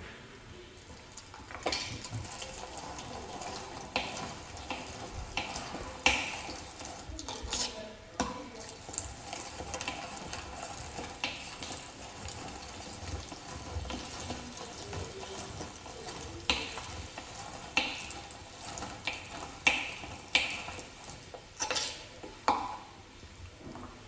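Irregular clicks and light knocks of a manual meat grinder's parts being handled and worked.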